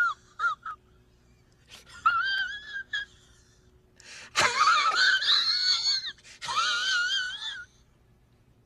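High-pitched squeals with a wobbling, quavering pitch, in three bursts separated by pauses; the middle burst, about halfway through, is the loudest and harshest.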